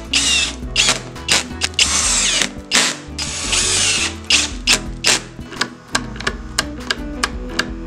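Cordless drill-driver driving screws into plywood in three short runs within the first four seconds or so, with ratcheting clicks throughout. Background music with a beat plays underneath.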